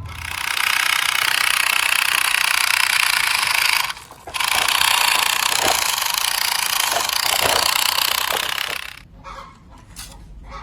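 A loud, harsh mechanical noise like a power tool running, in two long runs with a short break about four seconds in.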